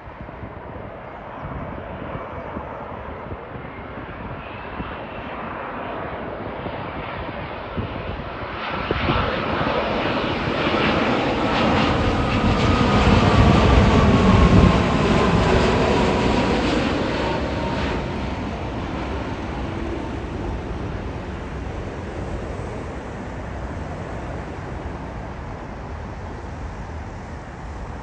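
Jet airliner on final approach passing the runway threshold to land: the engine noise builds, peaks about halfway through, then fades, with a whine that falls in pitch as it goes past. Wind rumbles on the microphone throughout.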